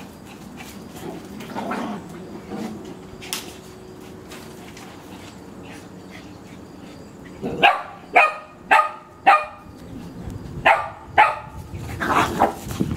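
Shih Tzus barking in play. After a quieter first half comes a run of about seven sharp barks, spaced about half a second apart.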